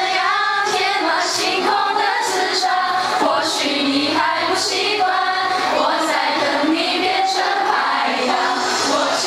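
A song sung by several young female voices together, with music and short sharp beats every second or so.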